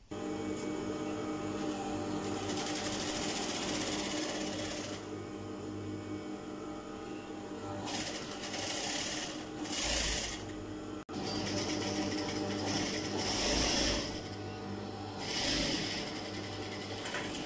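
Yamata industrial lockstitch sewing machine running steadily as it stitches lines of gathering stitches through fabric, with a brief stop about eleven seconds in before it runs on.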